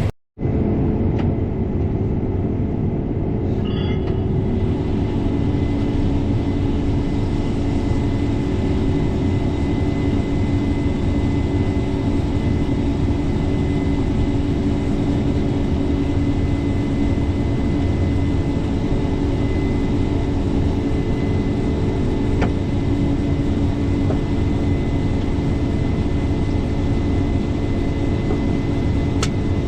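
Farm machinery running steadily at a constant engine speed, a heavy drone with a steady whine above it, after a momentary dropout right at the start.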